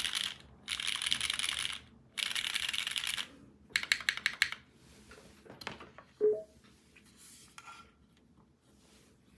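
Fast typing on a dnworks.co DM mechanical keyboard with lubed Cherry MX Red linear switches, an aluminium plate and GMK keycaps: three dense bursts of keystrokes, then a handful of separate key presses about four seconds in. A little after six seconds comes a single sharp knock with a brief ring, the loudest sound, followed by a few faint scattered clicks.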